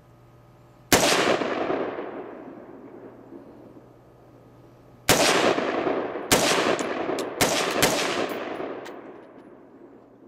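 AR-15 rifle fired in semi-automatic: one shot about a second in, then after a pause a quicker string of four shots, each trailing off in a long echo.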